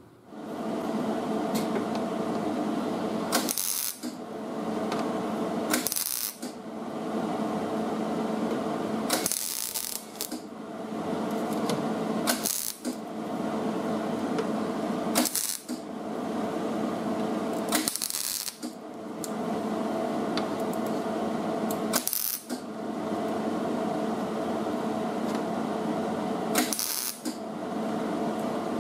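MIG welder crackling and buzzing as it welds a butt seam in thin sheet steel, in about eight runs of two to four seconds each with brief stops between them, each ending in a short hiss.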